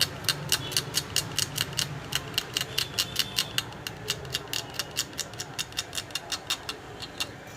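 A blade scraping the Nokia 108's display mounting area in quick, short strokes, about four or five a second, stopping near the end. The scratching roughens the surface so the paste and the new display grip well.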